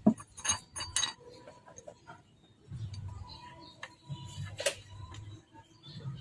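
Metal hand tools clinking against metal in a few sharp taps: the loudest right at the start, two more within the first second, and one more a little past the middle.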